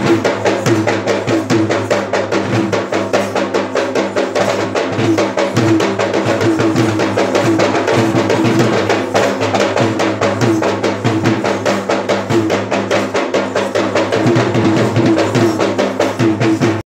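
Fast, unbroken drumming on traditional Sri Lankan ritual drums, many strokes a second, accompanying the dancers.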